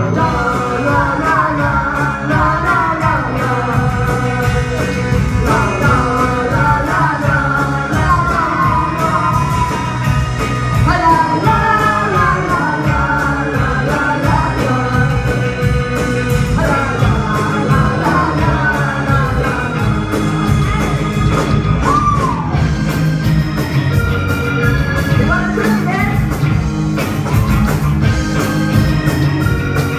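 A live rock band playing while a woman sings lead vocals, amplified through a PA in a large hall.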